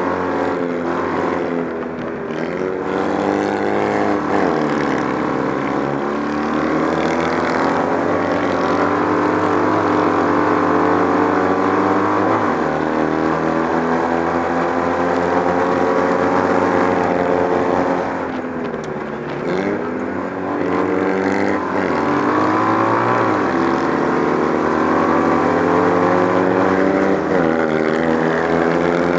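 Citroën 2CV 602 cc air-cooled flat-twin engine of a kart cross racing hard, heard from on board the kart. The revs dip and climb back up several times, most deeply about two seconds in and again near nineteen seconds.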